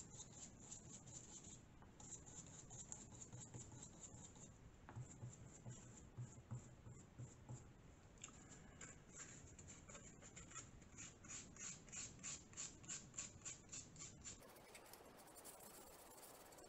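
Faint scratching of a stiff, nearly dry bristle brush being stroked over card, dry-brushing white paint onto a model's textured wall. Past the middle the strokes settle into a quick, even run of about two or three a second.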